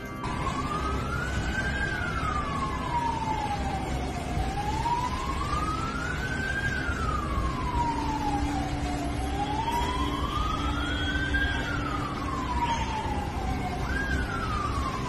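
A siren wailing in slow, even cycles, each rising over about two seconds and falling over about three. There are three full rises and falls, and a fourth begins near the end by jumping straight to its highest pitch. A steady low noise runs underneath.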